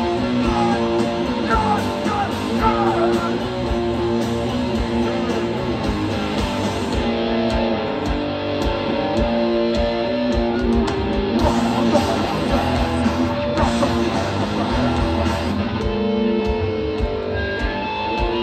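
Hardcore punk band playing live, with loud distorted electric guitars, bass and pounding drums.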